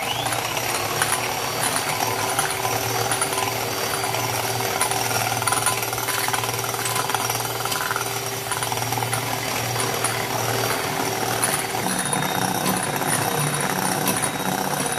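Electric hand mixer running steadily, its beaters whisking eggs and sugar in a glass bowl until foamy. Its motor hum shifts in pitch about twelve seconds in.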